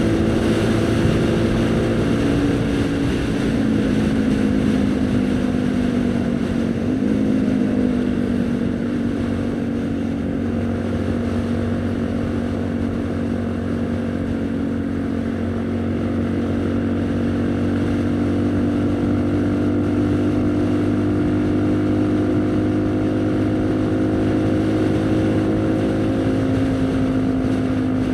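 Haojue NK150 motorcycle's single-cylinder engine running under way. Its pitch falls over the first several seconds, then holds fairly steady and rises a little near the end.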